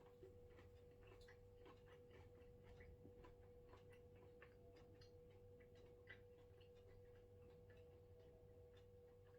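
Near silence with faint, irregular mouth clicks and soft crunches: chewing fried chicken skin. Under them runs a steady faint hum.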